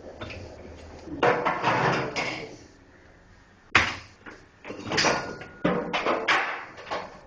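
Irregular scraping and clattering of parts being handled on a washing machine under repair, with one sharp knock about four seconds in.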